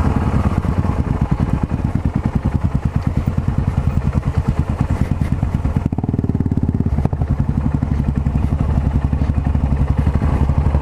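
Yamaha XT 660Z Ténéré's single-cylinder engine running while riding, a steady fast run of even pulses with a low rumble.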